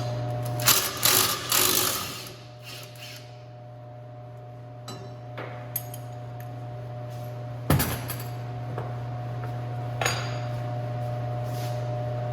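Metal hand tools clanking on the car's subframe bolts and hardware: a quick cluster of clanks in the first two seconds, then a single loud knock about two-thirds of the way in and a lighter one later, over a steady low hum.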